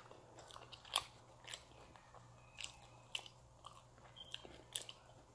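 Faint close-miked chewing of pizza: scattered short mouth clicks and smacks, one or two a second, over a low steady hum.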